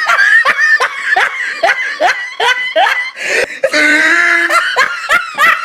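A person laughing hard in quick, high-pitched bursts, with a drawn-out high shriek about four seconds in.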